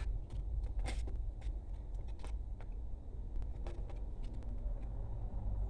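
Scattered small clicks and taps of hand tools and parts being handled during electronics repair work, over a steady low hum.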